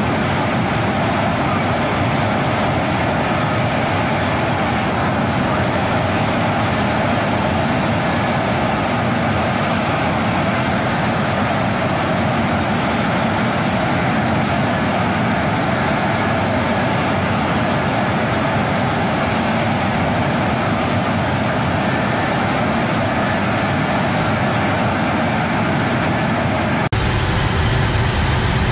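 Loud, steady heavy engine noise as the THAAD launcher truck rolls off the C-17's ramp, a continuous even rumble and hiss. Near the end it changes abruptly and turns deeper.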